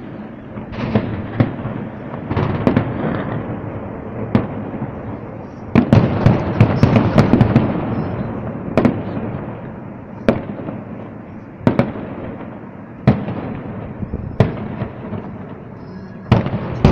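Aerial fireworks shells bursting: a run of sharp bangs with crackling between them, thickening into a dense volley about six seconds in, then single bangs every second or so.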